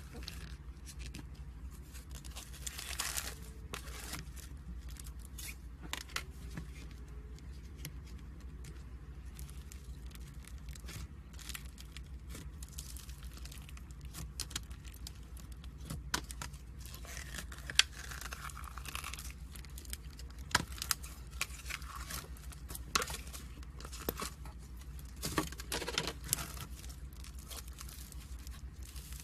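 Slime being squeezed and stretched by hand: irregular sticky crackling and sharp popping clicks, more frequent near the end, over a steady low hum.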